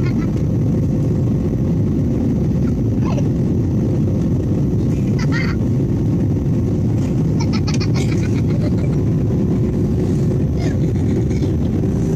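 Steady roar of jet airliner cabin noise, engines and airflow heard from a window seat over the wing during descent. A steady hum comes in near the end.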